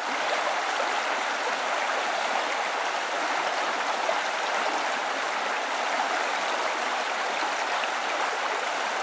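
Steady, unbroken rush of flowing stream water.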